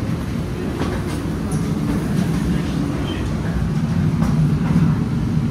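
Steady low rumble and hum of machinery at an airport gate, heard from the jet bridge, growing slightly louder, with a few faint knocks.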